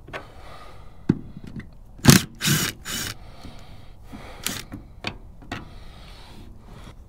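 Cordless impact driver run in several short bursts, backing out the bolts that hold a boat's hydraulic trim tab to the hull, with scrapes and clinks of the loosened hardware.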